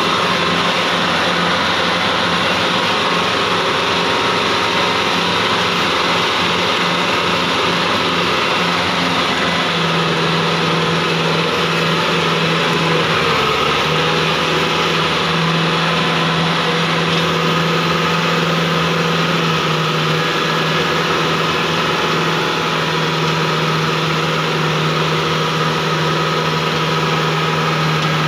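Tractor diesel engine running steadily as it drives through deep mud, heard from the driver's seat with the hood just ahead.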